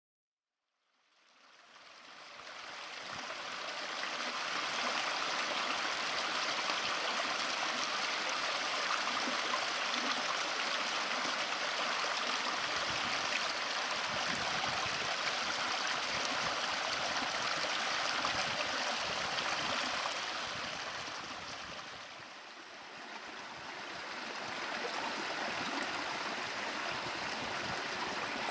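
A stream running: an even rush of flowing water that fades in over the first few seconds and dips briefly about three quarters of the way through.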